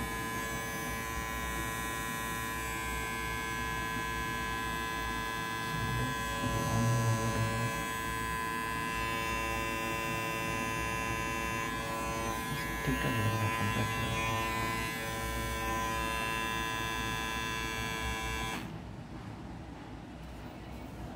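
A realme RMH2016 cordless beard trimmer running, giving a steady electric buzz that is briefly louder twice, then switched off near the end.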